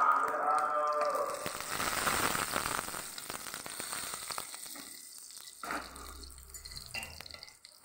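Hot mustard oil sizzling in a kadhai around whole dried red chillies and spices for a tadka. The sizzle is strongest in the first few seconds and dies away steadily.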